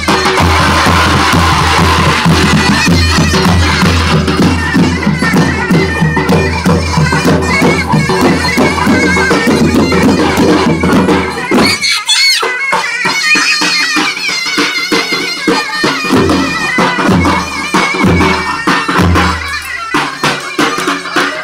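Davul bass drum and zurna playing halay dance music, the zurna's shrill reed tone carrying on throughout. The drumming is dense for the first half, drops out briefly just before the middle, and comes back as sparser, separate beats.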